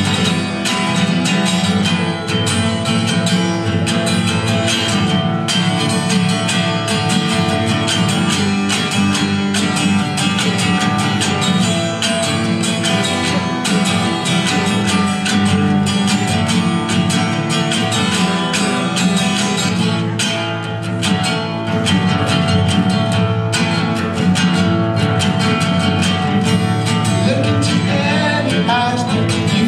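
Solo acoustic guitar strummed steadily through an instrumental passage, with a man's singing voice coming in right at the end.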